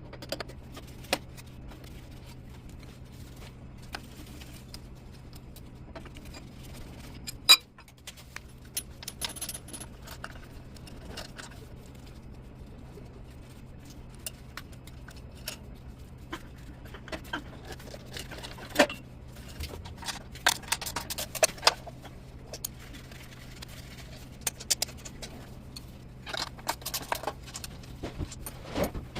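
Metal parts and hand tools clinking, rattling and scraping in irregular bursts, with one sharp loud click about seven seconds in and the clatter growing busier in the second half. A steady low hum lies under it.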